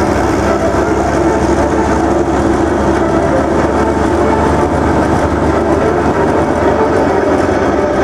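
Military vehicles' diesel engines running steadily as a Type 92 mine-clearing vehicle and an eight-wheeled armoured vehicle move off: a loud, continuous low drone with several steady tones.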